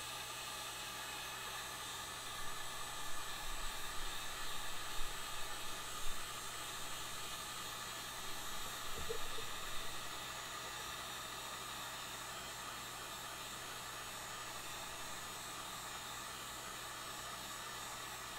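Heat gun blowing hot air in a steady hiss, softening single-wall 3D-printed plastic supports. The sound wavers unevenly for the first half, then holds even.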